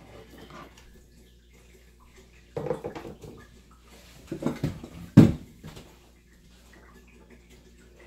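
Kitchen handling noises as a plastic cutting board and a bowl of onions and garlic are cleared off a wooden table: short clusters of knocks and clatters about two and a half and four and a half seconds in, and one sharp thump just after five seconds, the loudest.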